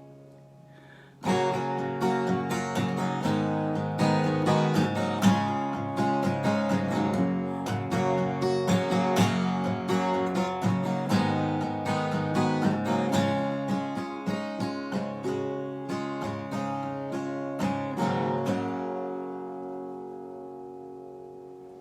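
Acoustic guitar strummed as an instrumental outro, starting about a second in. Near the end the strumming stops and the last chord rings out and fades.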